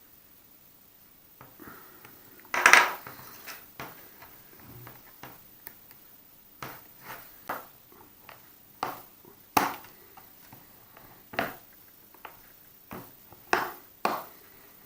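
Plastic clicks and snaps of an Acer Iconia One tablet being taken apart, typical of its back cover's clips being pried loose: about a dozen sharp clicks at uneven spacing, the loudest a longer crack about two and a half seconds in.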